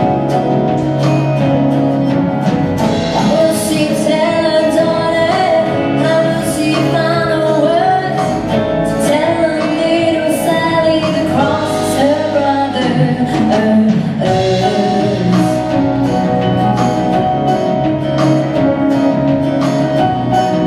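A woman sings a country ballad live to her own acoustic guitar, backed by a second acoustic guitar and a drum kit keeping an even beat. The voice falls away about two-thirds of the way through, leaving the guitars and drums playing on.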